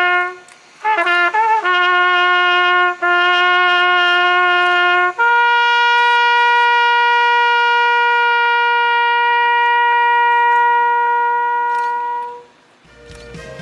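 Solo trumpet playing a slow military call: a low note sounded several times with a few quick ornamented notes between them, then one long held note a step higher that stops about twelve and a half seconds in. Other, fuller music begins just before the end.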